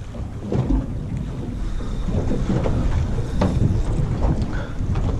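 Wind buffeting the camera microphone on an open boat, a dense low rumble. A few short, sharp knocks or splashes cut through it, the loudest about three and a half seconds in.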